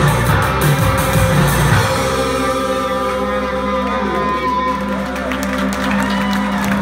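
Live rock band with electric guitars, bass and drums playing the close of a song. The drums stop about two seconds in, and the guitars and bass are left ringing in a sustained drone with a few wavering, gliding tones.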